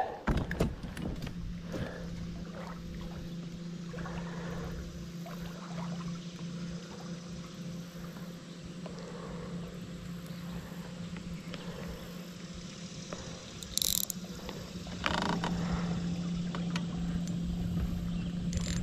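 A small motor hums steadily, getting louder about fifteen seconds in, with a brief high squeak just before.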